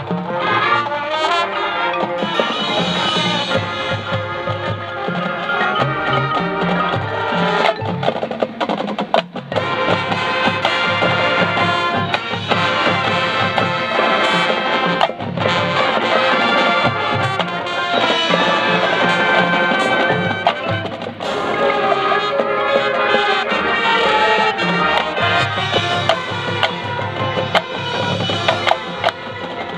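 High school marching band playing its competition show: brass over drums and front-ensemble percussion, with a brief drop in the music about nine seconds in.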